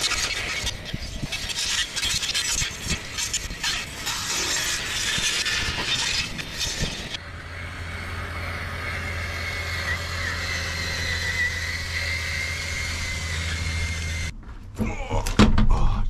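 An RC bulldozer's front-mounted saw blades chewing through brush and thorny blackberry vines, with a dense crackling and snapping of cut stems. About seven seconds in it changes to the steady whine of the spinning blade motors over a low hum.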